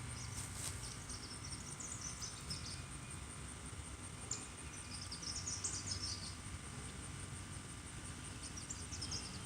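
Outdoor ambience: three short bursts of high twittering chirps from a small bird, over a steady low hum.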